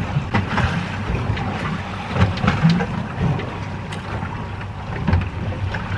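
Water slapping and splashing against the hull of a small boat drifting on choppy sea, in irregular low thumps, with wind buffeting the microphone.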